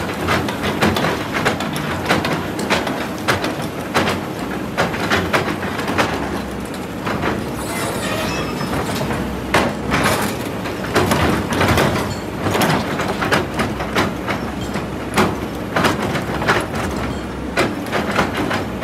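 Kobelco hydraulic excavator working under load, its bucket pushing against a large boulder: a steady engine drone with frequent irregular clanks and scraping knocks of metal on stone.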